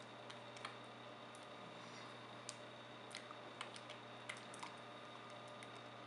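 Faint, irregular light clicks and taps from hands striking and brushing together while signing, over a steady low room hum.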